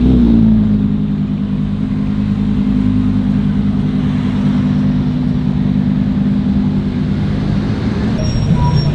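A supercar's engine: its revs drop right at the start, then it runs at a steady low engine note for several seconds.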